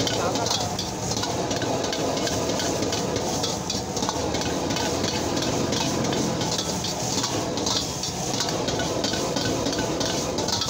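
Metal ladle repeatedly scraping and clanking against a wok while stir-frying, over a steady sizzle and the rush of a high-output gas wok burner.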